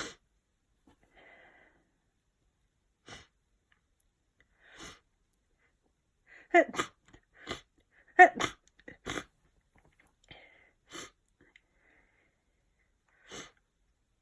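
A person with a sniffly head cold sneezing twice in quick succession about halfway through; these are the loudest sounds. Short sniffs and breaths come before and after.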